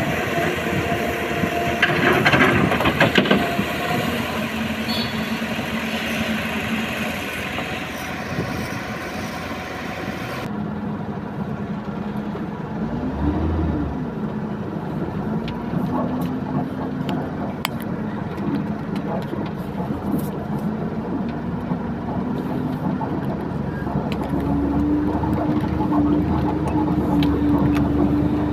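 Diesel excavator working, with rock clattering into a steel tipper body a couple of seconds in. About ten seconds in it gives way to a loaded Tata Prima tipper truck's diesel engine pulling uphill, its pitch rising and falling with the throttle, then held higher near the end.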